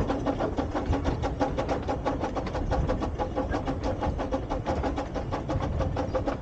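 Miniature steam locomotives working a train along at speed: a fast, even beat of exhaust chuffs over the steady rumble of the running train.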